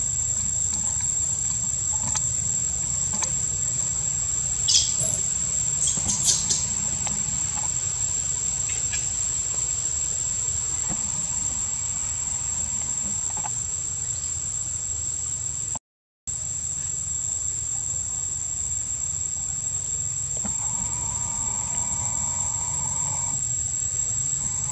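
Steady high-pitched drone of insects, with a few brief sharp high sounds about five and six seconds in. The drone drops out for a moment just past halfway.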